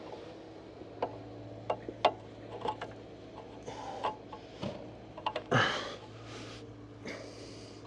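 Scattered light clicks and knocks of metal parts and cables being handled, with short rustling scrapes and one louder, downward-sweeping sound a little past the middle, over a low steady hum.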